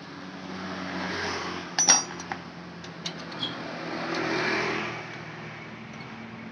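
Yamaha F1ZR's two-stroke single-cylinder engine running, its revs rising twice, about a second in and again around four seconds in, with a sharp metallic clink just before two seconds. It is being test-run on a replacement ignition coil, checking a fault where the engine won't rev out at full throttle.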